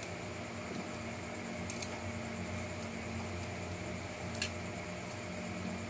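A couple of sharp little plastic clicks and taps as a plastic inner fender liner is handled and fitted onto an RC crawler's chassis, over a steady background hum.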